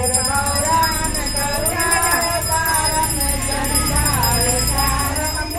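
A group of women singing a devotional song together during an aarti.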